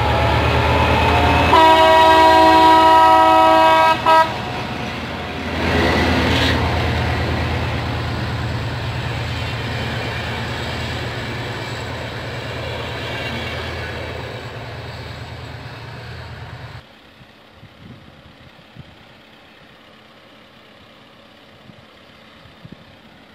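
Diesel locomotive sounding its horn, a multi-tone chord held for about two and a half seconds and ending in a short extra toot, as the train runs past. The engine hum and rumble of the wheels fade slowly and then cut off suddenly, leaving faint background sound.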